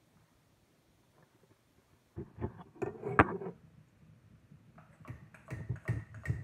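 A wooden kali stirrer and a metal spoon knocking and scraping against a stainless steel pot. The pot is nearly quiet at first, then a cluster of knocks starts about two seconds in, with one sharp knock just after three seconds. More clattering and scraping follows near the end, and the steel rings faintly.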